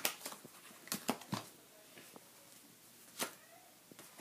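Playing cards being handled and slapped down on a wooden floor: a few sharp, irregular clicks and slaps.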